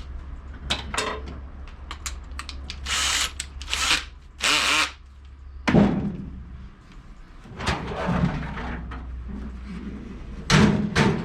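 Workshop handling sounds: several short scraping or rustling noises, then a couple of sharp knocks, as tools are positioned for marking and drilling a hole in the cart. A low hum runs underneath and stops about halfway through.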